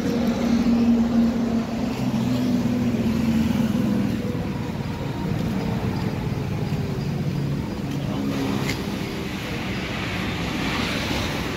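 A motor vehicle's engine running steadily, its note shifting a little now and then, with a short click about nine seconds in.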